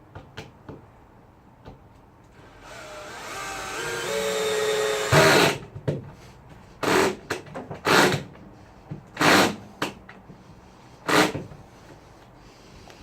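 Power drill driving 30mm screws into wooden floor planks: a motor whine that rises in pitch for a couple of seconds, then several short, loud bursts.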